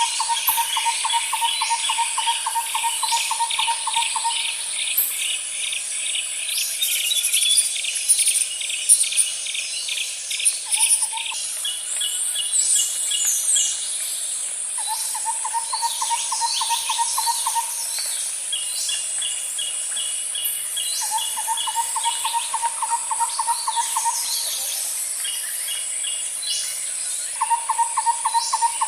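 Nature ambience: a steady high insect drone, with repeated trains of fast, evenly pulsed animal calls at one low pitch, each lasting a few seconds, over higher pulsed trills and scattered bird chirps.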